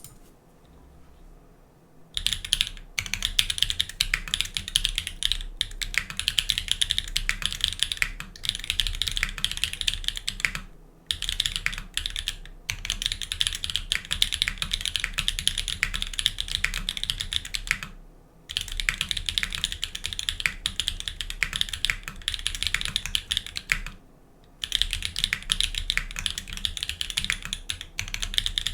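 Fast, continuous typing on a GeonWorks F1-8X mechanical keyboard with lubed Everglide Dark Jade linear switches, TX films and GMK ABS keycaps. It starts about two seconds in and goes in long runs of rapid keystrokes with a few brief pauses.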